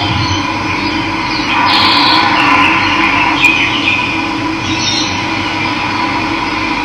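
Steady rush of running water, with birds chirping over it for a couple of seconds in the middle.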